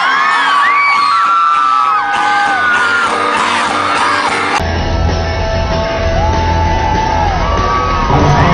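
Live rock concert recording: a singer's voice sliding up and down over the band. About halfway through it cuts abruptly to another live recording with much heavier bass.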